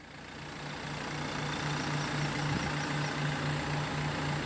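Music fading in, with a low bass note pulsing on and off about twice a second.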